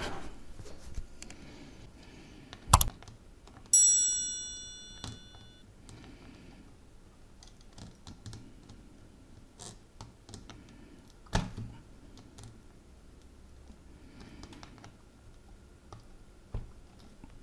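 Scattered clicks and taps of small tools and radio parts being handled, with a sharp click about three seconds in and, just after, a short metallic ring that fades over about a second and a half.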